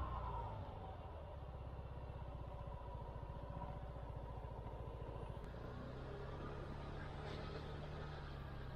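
Small SYM KRN scooter engine running steadily, an even low hum with a rapid regular pulse; a second low steady tone joins about halfway through.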